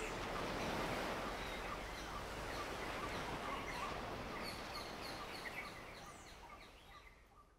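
Faint outdoor ambience of many small birds chirping over a steady background hiss, fading out over the last couple of seconds.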